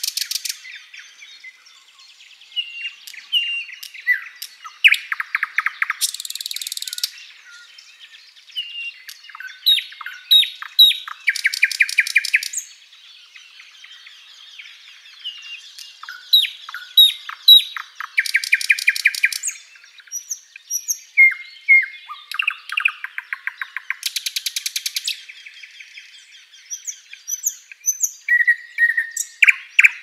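Thrush nightingale singing: phrases of sharp whistled notes alternating with loud, fast clicking rattles, which come roughly every six seconds with brief pauses between phrases.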